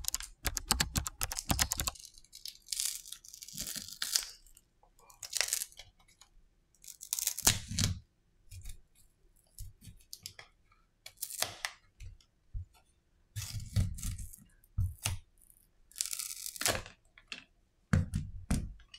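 Intro music with a beat ends about two seconds in. Then a Samsung Galaxy A51's back cover is pried off with a plastic pick: repeated short crackling tears as its adhesive lets go.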